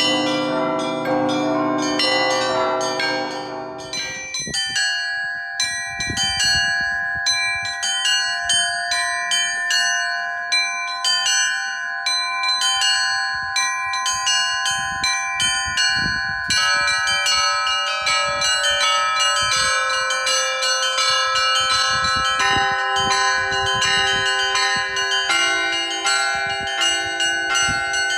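Russian Orthodox bell ringing (zvon): a set of church bells of several pitches struck in quick repeated rhythm, the small high bells chiming over the longer-ringing tones of larger ones. The deeper bells drop out about four seconds in, and lower bells come back in from about sixteen seconds.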